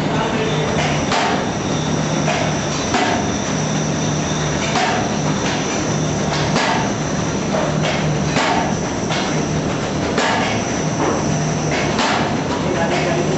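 Paper bag making machine with a two-colour printing unit running: a steady mechanical clatter with a heavy knock about every two seconds and lighter knocks between, over a low hum.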